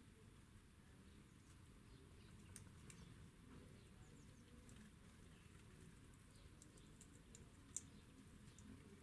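Near silence broken by a few faint, sharp clicks, small birds pecking at seed on a wooden bird table, one louder click near the end.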